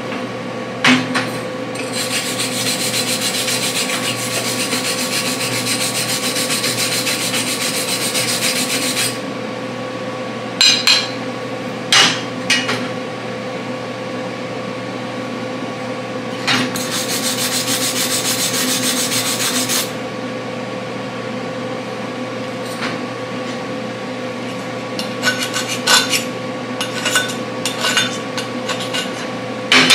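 Hand wire brush scrubbing a fresh MIG weld bead on steel to clean it up, in two long spells of steady scratching. Sharp metal knocks and clinks come between the spells and several times near the end.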